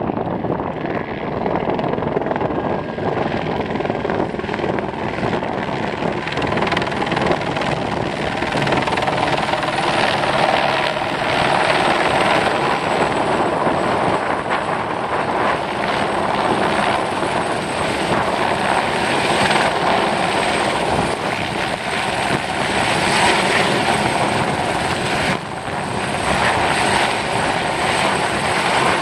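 Helicopter hovering close by with its rotor beating steadily. It grows louder over the first ten seconds or so as it comes in over the chairlift pylon, dips briefly near the end, then comes back up.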